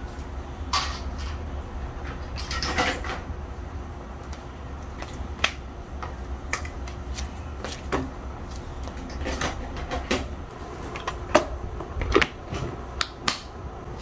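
Scattered knocks and clicks of household tidying, plastic toys and objects being picked up and set down, with footsteps in slippers on a tiled floor. A low steady rumble runs underneath and stops about ten seconds in.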